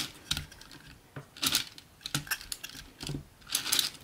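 Plastic 3D-printed circular sock knitting machine clicking and rattling as its needle cylinder is turned by hand, the metal needles moving in their slots, in irregular clusters of clicks.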